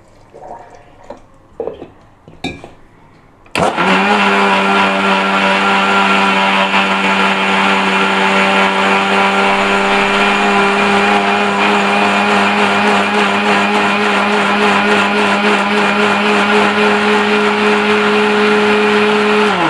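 Mixer grinder (mixie) switched on about three and a half seconds in, its motor running with a steady hum while the steel jar churns cream and water into butter. Near the end it is switched off and the motor's pitch falls as it spins down. Before it starts, a few knocks and clicks as the jar and lid are handled.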